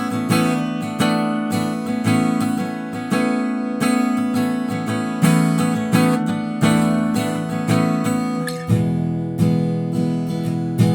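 Taylor GS Mini acoustic guitar strummed in a steady rhythm, about one strum a second, with a change of chord about three-quarters of the way through.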